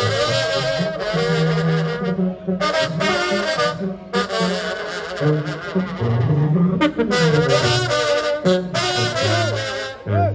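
Brass band music in banda style: horns playing a melody over a low, moving bass line.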